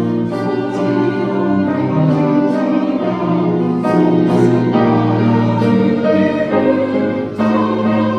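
Church choir singing a hymn in Korean in several parts, holding sustained chords over instrumental accompaniment.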